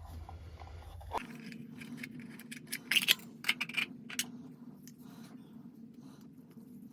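Light metallic clicks and scrapes of small plumbing parts being handled, with a steady low hum underneath from about a second in.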